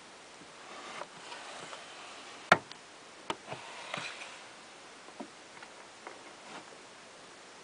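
Wooden drawers of a jewellery cabinet sliding, with one sharp wooden knock about two and a half seconds in as a drawer is pushed shut and a lighter knock just after. Then come scattered light clicks and rattles as the next drawer, full of jewellery, is pulled open.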